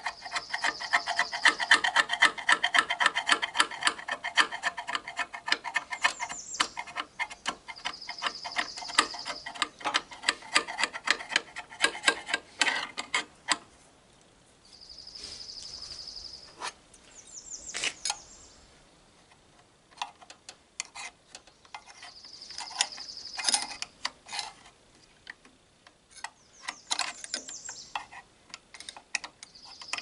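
A screwdriver scraping hardened pine sap off a thickness planer's cutterhead blades. It makes a rapid run of scratchy clicks for about the first dozen seconds, then scattered scrapes and taps. A bird's short, high trill repeats every several seconds.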